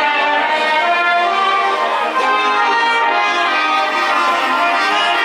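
Brass band playing a tune, several instruments holding and changing notes together.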